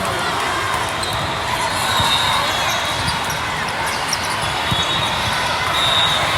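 Echoing gymnasium noise during a volleyball match: a steady hum of crowd chatter with scattered thumps of volleyballs being struck and bouncing on the court.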